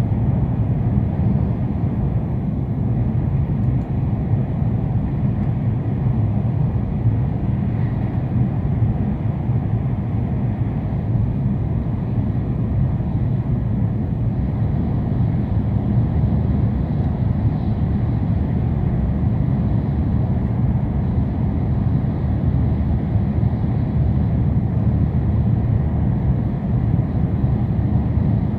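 Tohoku Shinkansen bullet train running at speed, heard from inside the passenger cabin as a steady, even low rumble that does not change.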